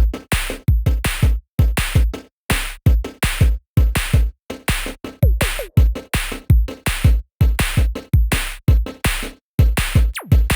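Electronic background music with a heavy drum-machine beat and deep bass kicks.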